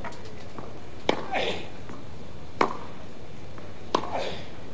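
Tennis ball struck by rackets in a baseline rally on clay: three sharp hits about a second and a half apart.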